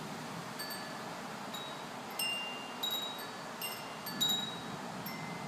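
Wind chimes ringing at uneven intervals in storm wind: several clear high tones at different pitches, each struck and fading slowly, over a steady rush of wind.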